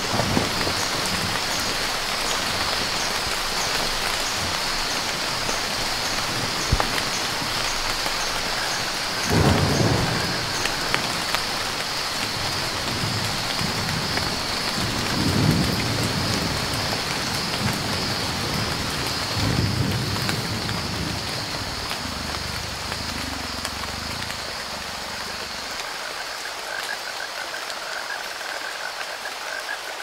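Heavy tropical rain falling on rainforest foliage and a river's surface, with low rolls of thunder about 9, 15 and 19 seconds in. A steady high-pitched animal chorus sounds under the rain throughout.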